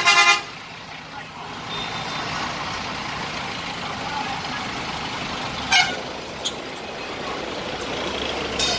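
A vehicle horn gives one short, loud honk, over the steady running of bus engines. Two short, sharp noises follow, one around the middle and one near the end.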